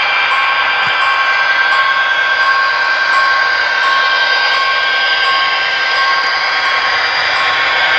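HO scale model freight train running on the layout: a steady mechanical whir of the running train, thin in the bass, with steady high tones through it, one pulsing about twice a second.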